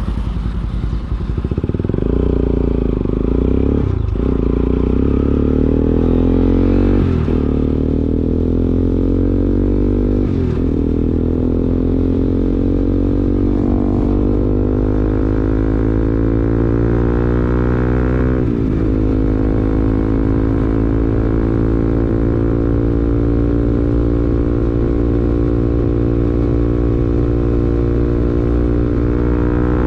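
Bajaj Pulsar NS200's 199.5cc liquid-cooled single-cylinder engine through an R9 racing exhaust, pulling away and accelerating through the gears. The revs climb and drop back at each of several upshifts in the first twenty seconds, then hold steady at cruising speed.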